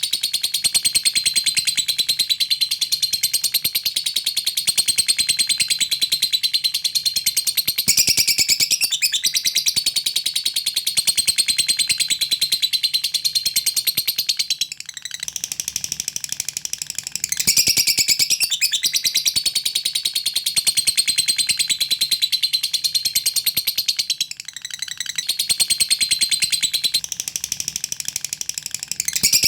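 Lovebird singing a long, very rapid chattering trill (the 'ngekek'), high-pitched chirps run together almost without a break, pausing briefly about halfway and again near the end.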